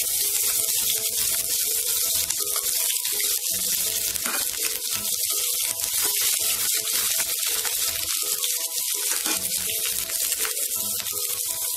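Chopped garlic, ginger and green chilli sizzling in hot oil with cumin seeds in a kadai, a steady hiss that starts the moment they are dropped in.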